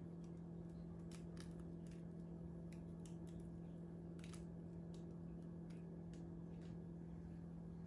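Steady low electrical hum with scattered faint ticks and crackles: dried osmanthus flowers being sprinkled over whipped cream.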